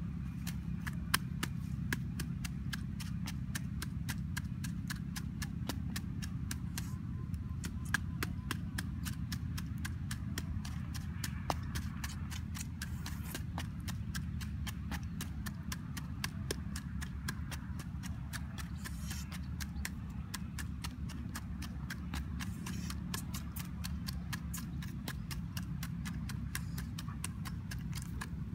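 Wooden pestle pounding red chilies in a small mortar bowl: a steady, rhythmic run of sharp knocks, a few a second, as the chilies are crushed into a paste.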